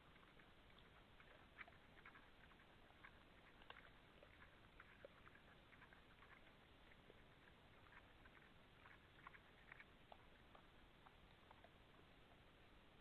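Faint, irregular clicks and crackles of animals feeding and moving about on the ground at a forest feeding site.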